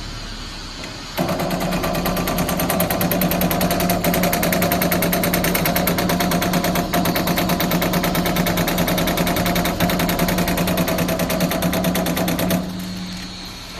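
Dadong ER300 servo CNC turret punch press punching sheet metal in a fast, evenly spaced run of strokes over a steady machine hum. The run starts abruptly about a second in and cuts off sharply near the end.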